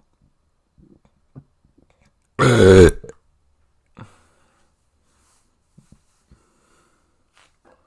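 A person burping once: a single loud, low-pitched belch about half a second long, some two and a half seconds in.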